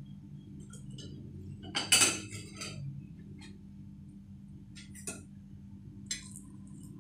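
A metal fork clattering and clinking against glass and china serving dishes. There is one loud clatter about two seconds in, then a few light clinks.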